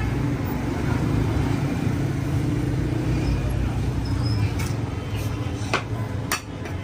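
Steady rumble of street traffic. In the last couple of seconds, a few sharp clinks of metal dishes or utensils cut through it.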